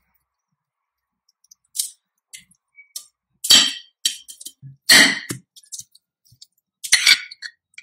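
Metal spoon and tongs clinking and scraping on a ceramic plate while boiled chicken is pulled apart. After about a second of quiet, irregular short clinks and scrapes, two louder ones near the middle.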